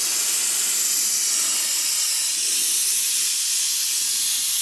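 Siphoning tool hissing steadily as it sucks power steering fluid out of the reservoir through a thin tube.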